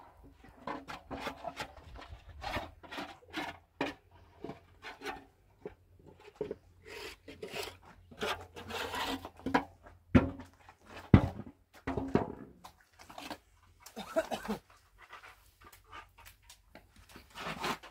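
Trowel scraping and knocking plaster mix in a metal basin, a run of short irregular strokes.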